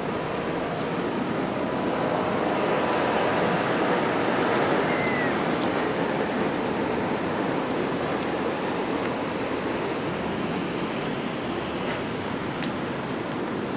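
Steady rushing outdoor noise, such as traffic or wind, swelling for a few seconds and then easing off.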